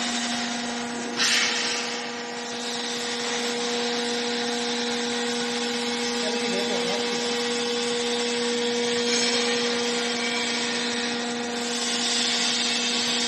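JR-200 double-auger industrial meat grinder running: a steady motor hum under a constant grinding, rushing noise, which swells briefly about a second in.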